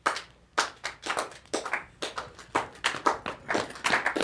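Hand clapping by a small group, one person at a time: single claps about half a second apart at first, coming faster and overlapping near the end as more people join in.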